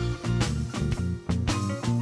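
Background music: an upbeat instrumental with a steady drum beat and a bass line.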